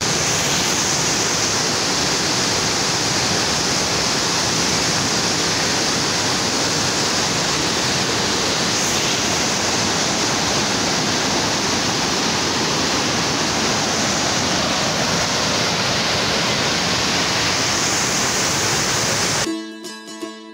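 Floodwater rushing through the open gates of a dam, a steady unbroken roar of churning water, with strong wind buffeting the microphone. About a second before the end it cuts off suddenly to plucked-string music.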